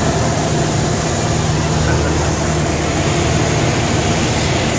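Steady drone of a single-engine light aircraft's engine and propeller, heard inside the cabin in flight, with a constant rush of air over the airframe.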